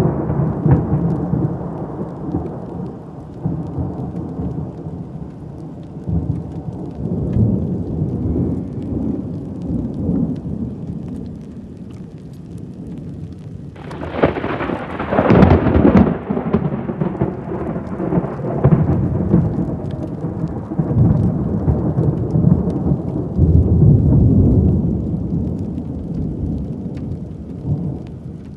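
Thunder rolling and rumbling through heavy rain, with a sudden sharp thunderclap about halfway through that rumbles on and slowly fades toward the end.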